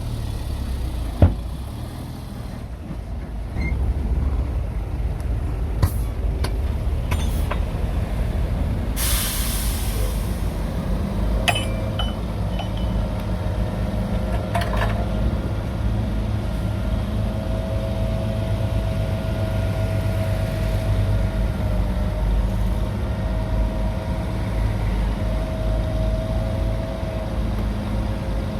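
Heavy diesel engines of earthmoving machinery, a bulldozer and a dump truck, running steadily. A few sharp knocks sound in the first six seconds, a burst of air-brake hiss about nine seconds in, and a steady whine joins from about eleven seconds.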